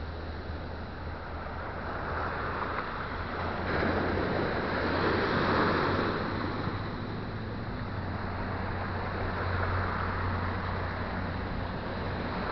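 Small Caribbean waves breaking and washing up a sandy, pebbly shore, the hiss of the surf swelling and fading with each wave. A low steady rumble runs underneath.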